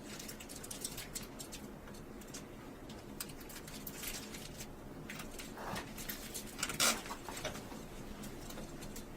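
Faint scattered clicks and rustling of small objects being handled, with a couple of louder brief scrapes or clatters around six to seven seconds in.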